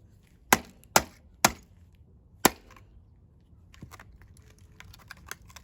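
Four hard blows on a microwave oven's control panel: three in quick succession about half a second apart, then one more a second later, followed by faint small clicks and rattles of loosened parts.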